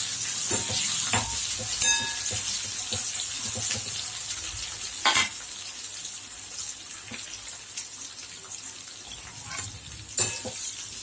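Chopped onion, garlic, capsicum and green chilli sizzling in hot oil in a kadai as they are stirred. The sizzle slowly fades, and a metal spatula knocks against the pan three times, the first with a short ring.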